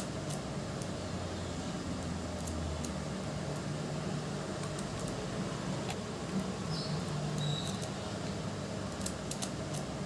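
Steady low hum with scattered small clicks and rattles as test leads and wires are handled.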